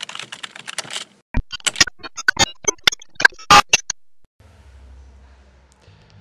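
Glitchy sound design for a logo intro: a hiss full of stutters, then a run of sharp digital clicks and crackles, the loudest burst about three and a half seconds in. After that a low synth bass drone sets in and moves up in pitch near the end.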